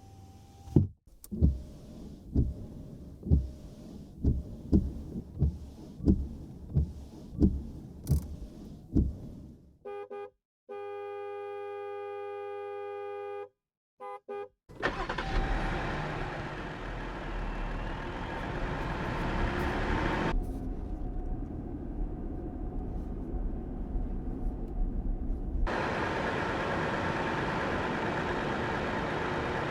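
2022 Chrysler Voyager minivan recordings. First comes a run of about a dozen evenly spaced low thumps, then a horn blast of about three seconds followed by two short beeps. Then the 3.6-litre V6 starts and runs, dropping quieter for about five seconds before coming back up.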